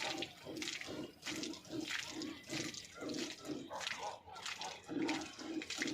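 Hand-milking a Nili-Ravi buffalo: alternating streams of milk squirting into a nearly full bucket, a steady rhythm of about two to three squirts a second.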